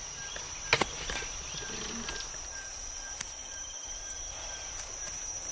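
Steady high-pitched insect drone with a few sharp clicks, the loudest about a second in and another around three seconds.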